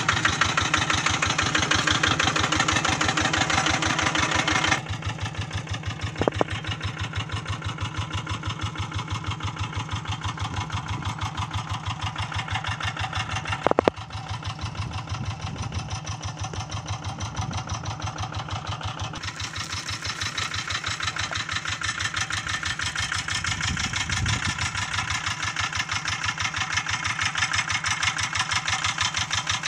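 Kubota RD85 single-cylinder diesel engine idling with an even chugging beat after ploughing. It grows fainter about five seconds in and louder again after about twenty seconds. Two sharp clicks come partway through.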